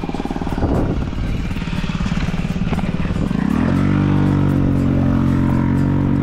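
Honda Ruckus scooter engine pulling away from a stop. The revs climb over the first few seconds, then hold at a steady drone once under way.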